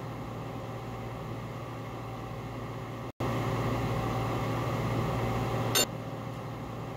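Steady low machine hum of a machine shop with an idle CNC lathe, a constant drone with fan-like noise over it. It drops out for an instant about three seconds in and comes back louder, and a short sharp sound is heard near the end.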